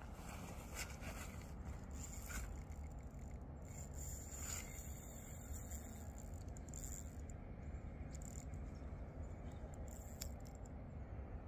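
Fishing reel being worked against a hooked sturgeon: faint clicking and scraping from the reel and rod over a steady low rumble.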